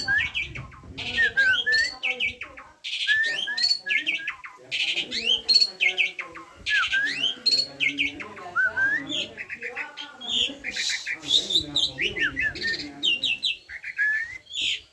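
Asian pied starling singing a long, varied song: whistled notes sliding up and down, mixed with quick runs of rapid chattering notes and lower warbling.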